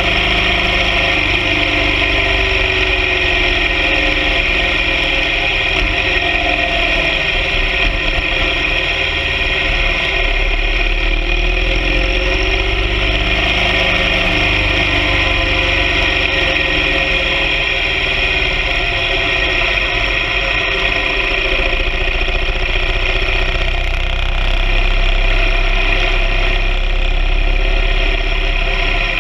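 BMW R 1200 GS Adventure sidecar rig's boxer-twin engine running steadily while riding, with constant road and wind rumble.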